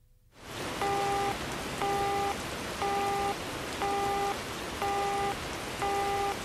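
Telephone busy signal, a short flat beep repeating about once a second, six times, over steady rain: the line called is engaged.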